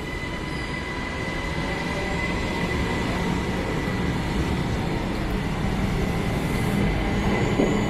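SNCB class AM08 Desiro electric multiple unit moving off along the platform, a continuous rumble of wheels and running gear that slowly grows louder as it picks up speed, with a faint steady whine.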